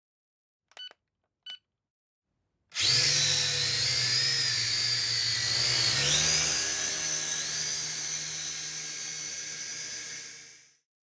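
Two short electronic beeps, then a drone's electric motors and propellers start about three seconds in and run with a high whine whose pitch wavers up and down over a low hum, fading out near the end.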